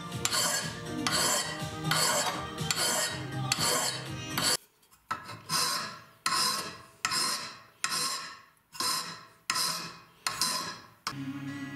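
Hand file rasping over a small metal part clamped in a vise, in steady strokes a little faster than one a second, with a brief pause about halfway through.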